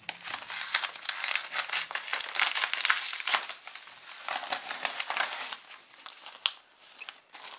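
Padded paper postal envelope crinkling and rustling as it is handled and opened, then its paper and plastic contents rustling as they are pulled out. The crinkling is busiest for the first five seconds or so and thins out after, with one sharp tick near the end.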